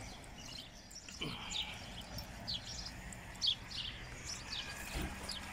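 Small birds chirping in short, scattered high-pitched calls, over a faint low steady hum.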